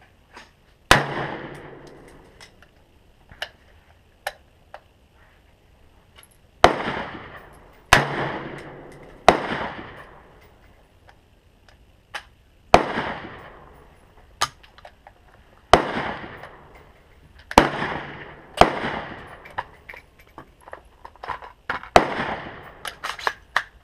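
AR-15 rifle in 5.56 firing single shots: about nine loud cracks at uneven gaps of one to five seconds, each trailing off in a long echo. Fainter sharp cracks come between the shots.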